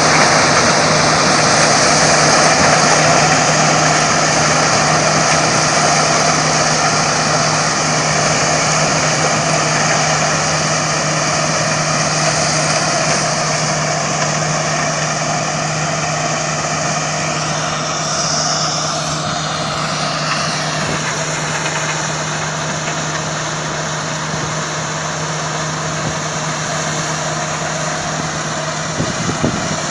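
Corn-harvesting machine's engine running steadily, a constant drone that eases off slightly over the span.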